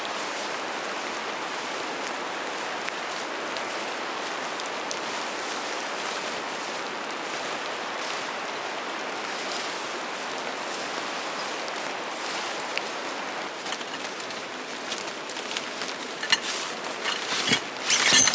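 Steady rain hissing. About three-quarters of the way in, a run of sharp clicks and knocks starts over it, growing louder toward the end.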